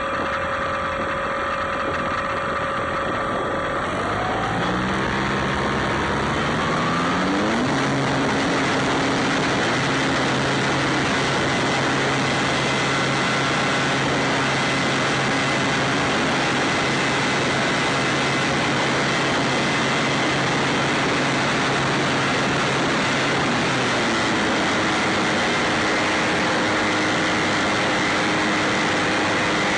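Electric motor and propeller of an E-flite Apprentice RC trainer plane, heard from its onboard camera: a steady whine that climbs in pitch from about four to eight seconds in as the throttle opens for the takeoff run, then holds under a rush of propeller and air noise as the plane climbs. The pitch shifts again about 24 seconds in.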